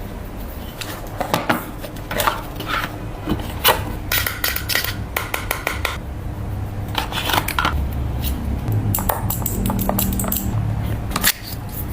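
Phone unboxing handling sounds: scattered clicks, taps and light rubbing as a box, packaging and a phone are handled, over a steady low hum.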